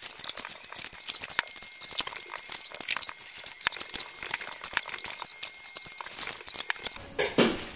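Kitchen handling noises: many small irregular clicks, clinks and rustles as items and a paper bag are moved about on the counter, with a faint steady high tone through the middle.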